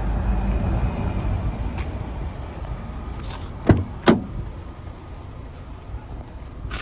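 Fiat 500's driver door being opened: two sharp clicks of the handle and latch, a little under four seconds in. Under them runs a low rumble that is strongest at the start and fades.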